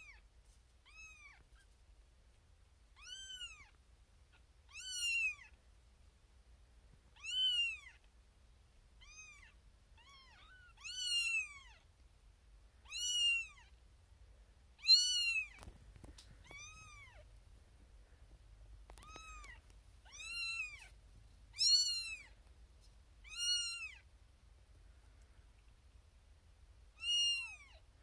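Newborn Siamese kitten meowing over and over, loud high calls that rise and fall in pitch, about one every two seconds with a short pause midway: a kitten crying for attention from its human rather than settling with its littermates.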